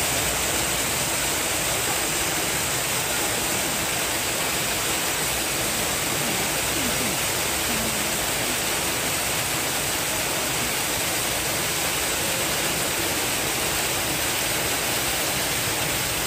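Steady rush of running water in a polar bear's pool, an even hiss with no breaks.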